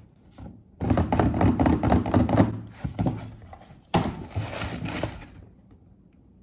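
Cardboard shoebox being opened and tissue paper crinkling and rustling as a sneaker is unwrapped and lifted out. The sound comes in two stretches, a longer one starting about a second in and a shorter one starting abruptly about four seconds in.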